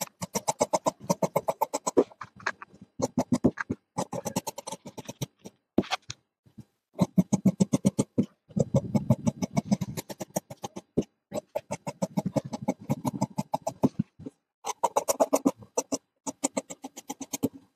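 Tailor's shears snipping through uniform cloth in rapid runs of clicking cuts, about seven a second, in bursts of a second or two with short pauses between.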